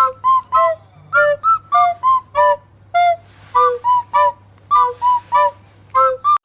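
A quick tune of short, separate whistle-like notes, about three a second, jumping between lower and higher pitches.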